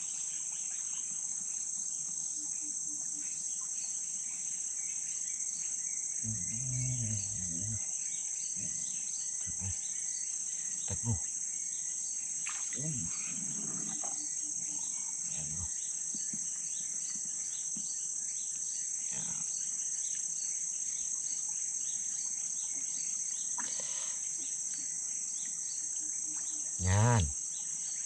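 Steady high-pitched drone of insects from the riverside rainforest, with a few soft knocks in the middle and a brief louder sound near the end.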